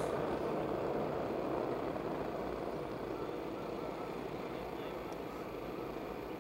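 A pack of about fifteen 125cc two-stroke racing karts running slowly together on a rolling formation lap: a dense, steady engine drone that fades a little as the pack pulls away.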